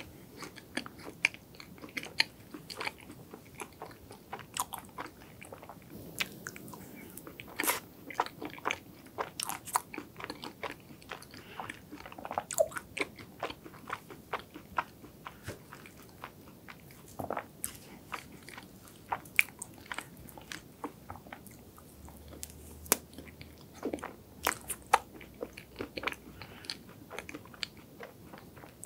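Close-miked chewing of chocolate ice cream cake with crisp wafer layers, with many sharp crunches scattered throughout.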